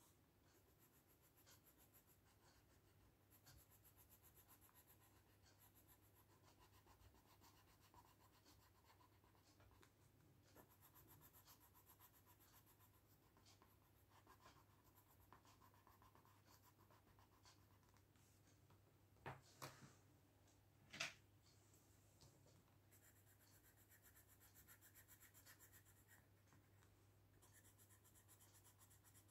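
Faint scratching of a coloured pencil shading on paper, in short stretches of strokes that come and go. A few sharp clicks come about two-thirds of the way through.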